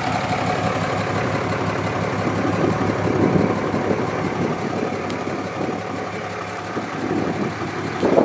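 2007 Dodge Ram 2500's 6.7-litre Cummins turbo diesel idling steadily, heard from behind the truck through its aftermarket big-pipe exhaust.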